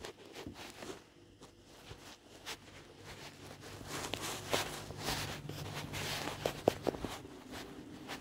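Footsteps with irregular scuffs and clicks, getting busier and louder from about four seconds in, over a faint steady hum.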